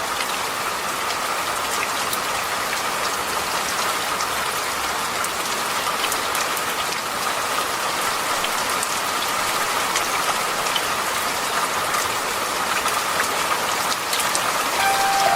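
Steady rain falling, an even hiss with scattered small ticks of drops. Soft music notes come in near the end.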